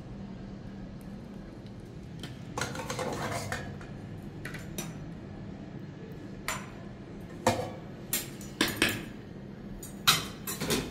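Dishes and cutlery being handled: a scraping clatter about two and a half seconds in, then a run of sharp clinks and knocks in the second half.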